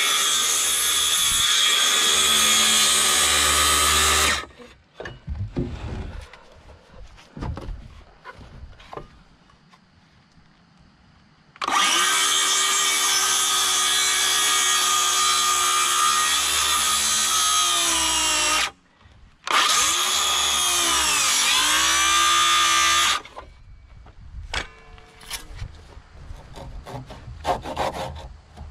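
DeWalt cordless circular saw cutting birdsmouth notches in a wooden rafter. It runs in three cuts: one of about four seconds, then two more after a pause. In the last cut the pitch sags and recovers as the blade loads up in the wood. Between the cuts come quieter knocks and scrapes of the saw and board being handled.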